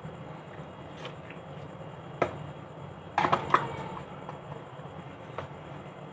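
A sharp knock about two seconds in, then a short clatter of clicks and clinks with a brief ring a second later, over a steady low hum.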